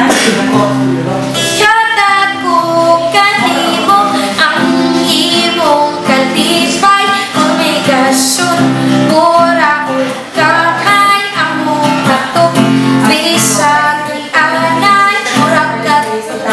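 A young woman singing a melody, accompanying herself on a cutaway acoustic guitar.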